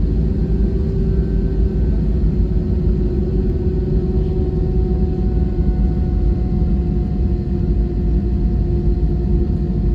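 Airbus A320 jet engines heard inside the passenger cabin: a loud, steady rumble with a steady hum tone riding on it.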